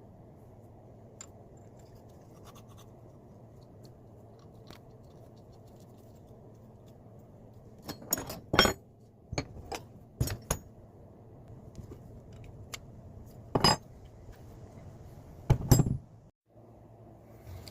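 Metal vise parts being handled and fitted back together: faint scattered clicks, then, about eight seconds in, a run of louder metallic knocks and clinks that ends with a last pair near sixteen seconds. A low steady hum runs underneath.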